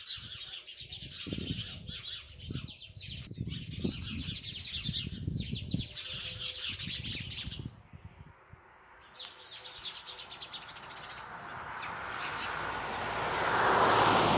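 Sparrows chirping in a dense, continuous chatter that breaks off about eight seconds in, then returns briefly with a few chirps. Near the end a rising rush of noise becomes the loudest sound.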